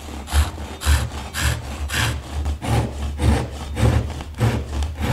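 Hand saw cutting into a small wooden butter-knife blank, rasping back and forth at about two strokes a second.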